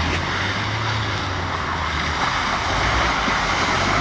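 Old car's engine running during off-road driving, with a steady rushing noise over the low engine hum.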